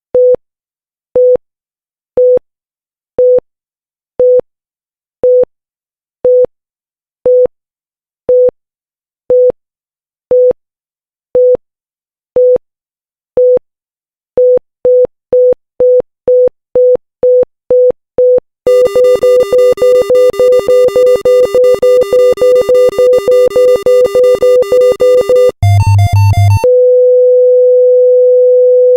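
Pulse oximeter heartbeat beeps, a short single-tone beep about once a second. About halfway through they speed up to about two a second, then turn into rapid, harsher beeping with a second lower tone, then a brief warbling two-note sound. Near the end this gives way to one continuous steady tone, the flatline that signals no pulse is detected.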